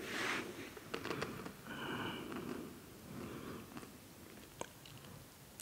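Close-miked mouth sounds of eating a salty snack: biting, chewing and a sniff, with scattered soft clicks.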